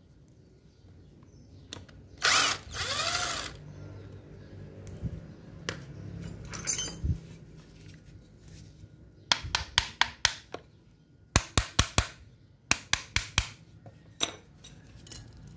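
Parts of an old Makita angle grinder's gear head being handled and worked apart by hand: a loud scrape about two seconds in, then from about nine seconds on several runs of sharp clicks, a few a second.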